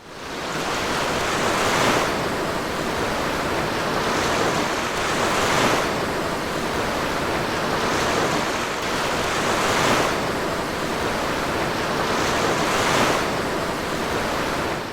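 Strong current of the Lech River below the dam rushing loudly, swelling and easing about every two seconds like breaking waves.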